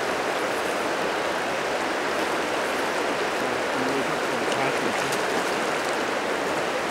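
Shallow river running over a gravel bed: a steady rush of flowing water.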